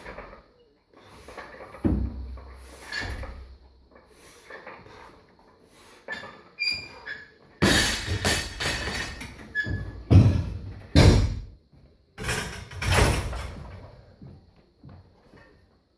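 Loaded weightlifting barbell thudding and clattering as it is lowered and dropped onto the gym floor: several heavy thumps with plate rattle, the loudest two about ten and eleven seconds in.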